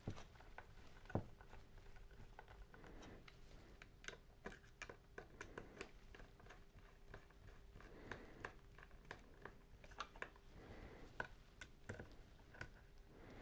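Faint scattered clicks and light taps of tool parts being handled during assembly, several a second at times, over a faint steady hum.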